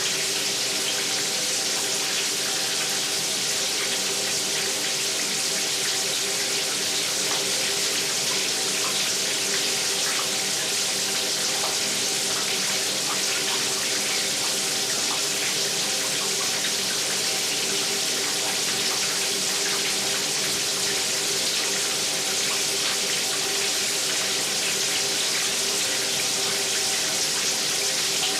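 Water running steadily from a tap, an even rushing hiss with a faint steady ringing tone under it that does not change.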